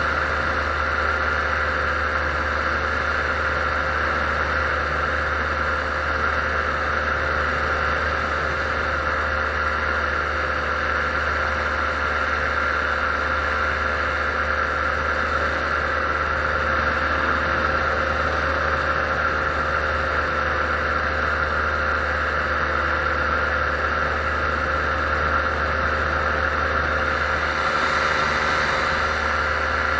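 Paramotor engine and propeller running steadily in flight, a constant drone with a high whine. A brief hiss rises near the end.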